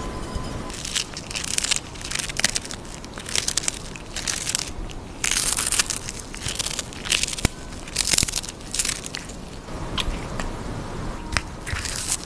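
A cat crunching and chewing a small whole fish close to the microphone, in irregular bouts of crisp crunches with short pauses, thinning out near the end.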